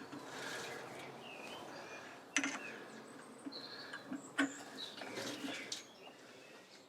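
Quiet hand-threading on a lathe, a die on steel bar with the chuck turned by hand: two sharp metallic clicks, about two seconds apart, over a low background with a few short high chirps.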